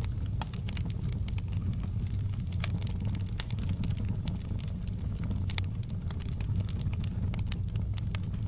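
Wood fire crackling: irregular sharp snaps and pops, several a second, over a steady low rumble of the burning fire.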